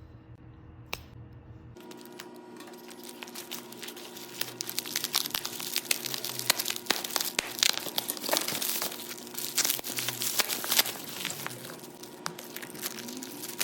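Packaging on an iPhone 13 Pro box crinkling and tearing as it is pulled off by hand. The dense crackling builds from about two seconds in, is loudest in the middle and thins out near the end.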